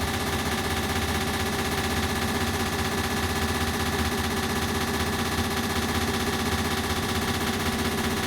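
Ceiling fan running, its sound put through echo effects into a steady, rapid even pulsing with several held hum tones.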